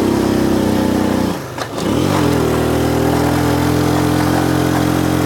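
A vehicle engine running steadily while under way. About a second and a half in, the sound dips briefly, then the engine settles to a steady note at a different pitch.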